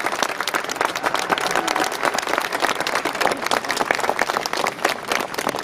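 Crowd of spectators applauding: dense, steady clapping that eases slightly near the end.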